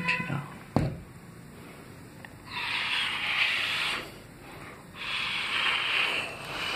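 Handmade fiber-sheet 3D star being handled and turned in the hand, with a click about a second in, then two long hissing rubs, about a second and a half and two seconds long.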